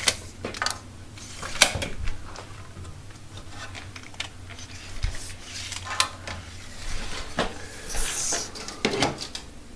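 Scattered light knocks and clatter, roughly one every second, with a short scraping hiss about eight seconds in: pieces of timber and tools being handled.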